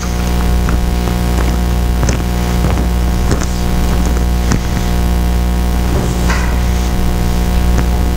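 Steady electrical mains hum and buzz in the audio feed, with a few soft knocks and clicks scattered through it.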